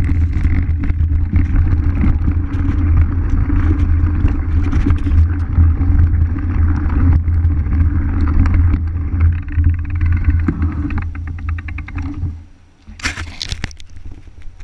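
Mountain bike rolling over gravel, wind and tyre rumble loud and steady on the bike-mounted action camera's microphone. About eleven seconds in, rapid freehub ticking comes in as the bike coasts, then the rumble stops as it halts and a short hiss sounds near the end.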